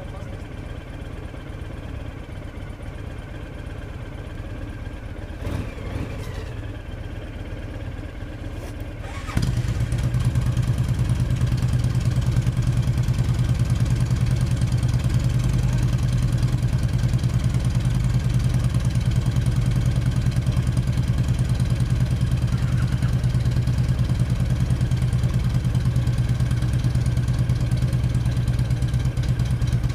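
A V-twin cruiser motorcycle engine catches suddenly about nine seconds in and settles into a loud, steady idle. Before that, other motorcycles idle more quietly.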